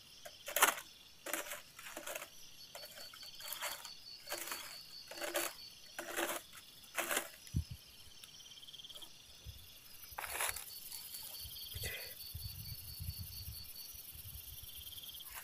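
Irregular scratchy rustles in dry grass or leaves, roughly one a second and thinning out after about seven seconds, over a steady high chirr of night insects. A low rumble comes in near the end.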